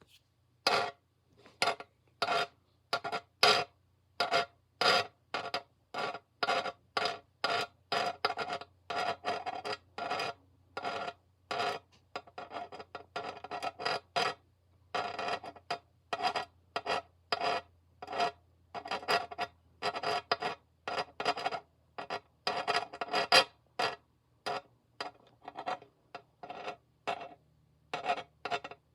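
Repeated scratching strokes on a surface, short rasping scrapes coming irregularly at about two a second, over a faint low hum.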